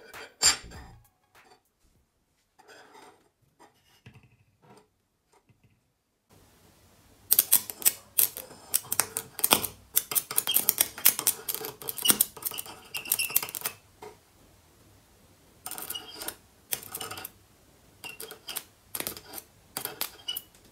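Irregular sharp clicks and crackles, dense for several seconds in the middle and then in scattered bursts, over a faint low hum.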